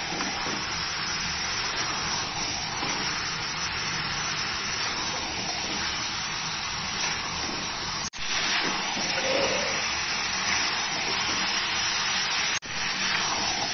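Marinated chicken pieces sizzling in hot oil in a steel kadai as they are stirred with a spatula: a steady frying hiss. The sound cuts out for an instant twice, about eight and twelve and a half seconds in.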